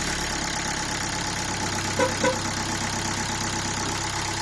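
Nissan Qashqai 1.5 dCi four-cylinder diesel engine idling steadily just after starting, with no knock now that its slipped timing belt has been replaced and correctly timed. Two brief sharp sounds about two seconds in.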